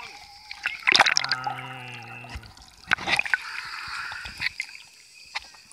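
Sea water sloshing and splashing right against a camera held at the water's surface, with a swimmer's strokes. There are two sharp splashes, about a second in and about three seconds in.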